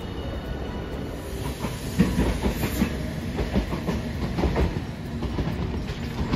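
Rail vehicle rumbling, then from about two seconds in a Hiroden tram's wheels clacking in an irregular run of knocks as it rolls over the rail joints and points.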